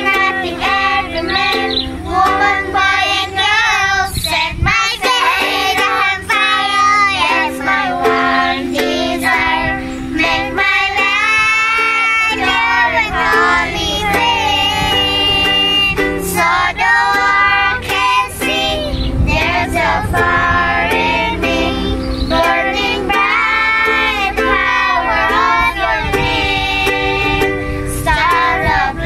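Music: a song sung by a child's voice over steady instrumental accompaniment.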